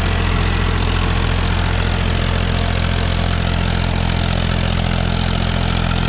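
Powertrac Euro 50 tractor's three-cylinder diesel engine running steadily under load in low first gear, driving an 8-foot rotavator that is tilling the soil.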